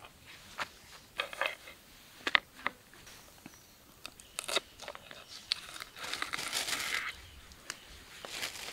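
Irregular knife strikes on a wooden cutting board as fresh herb leaves and green chillies are chopped, with the leaves rustling as they are gathered, the longest rustle about six to seven seconds in.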